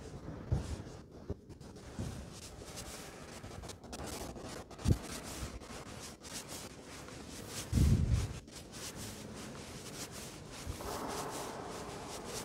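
Rubbing and scraping of a hand-held phone being moved about while filming, with a few dull thumps; the loudest thump comes about eight seconds in.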